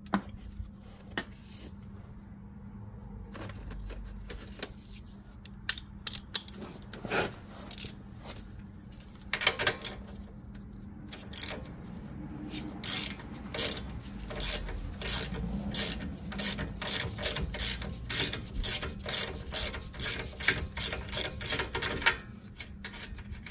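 Hand ratchet clicking on the back-strokes while a suspension nut is loosened. The clicks come in a steady run of about two to three a second through the second half, after scattered metallic clicks and clanks of tool handling.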